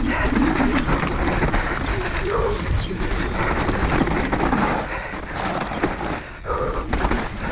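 Mountain bike descending a dirt forest singletrack at race pace: tyres rolling over dirt and roots, with the frame, chain and suspension rattling and knocking, and the rider breathing hard and grunting with effort.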